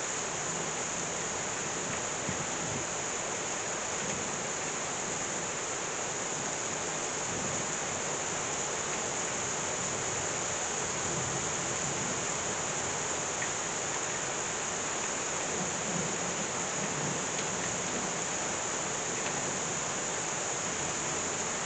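Heavy rain pouring down steadily, an even dense hiss.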